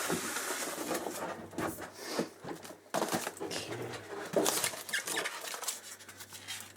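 Packaging being handled and opened: irregular rustles, scrapes and light knocks.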